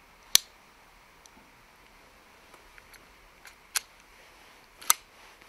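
Sharp metallic clicks of a Brocock Concept XR's 13-shot rotary pellet magazine being loaded and fitted into the air rifle: three loud clicks a few seconds apart, with fainter ticks between.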